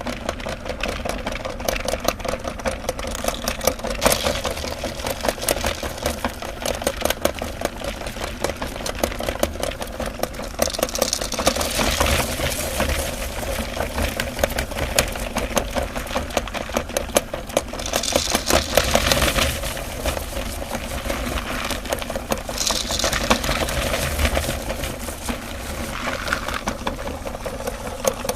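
Electric meat grinder running with a steady motor hum and dense, irregular crackling as it crushes and extrudes candy. Several times there is a harsher, hissier grinding stretch.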